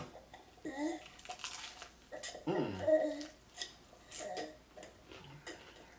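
A toddler babbling in short vocal bursts, about three times, amid small clicks and clinks of cutlery and dishes at the table.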